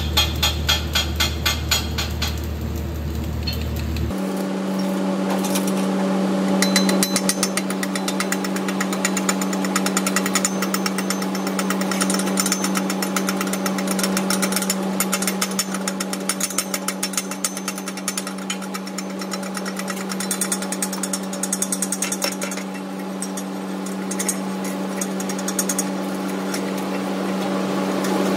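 A chipping hammer rapidly tapping slag off a freshly laid stick-weld bead on steel plate: a dense run of sharp metal-on-metal knocks over a steady hum. The tapping starts suddenly about four seconds in, after a short stretch of a regular pulsing sound.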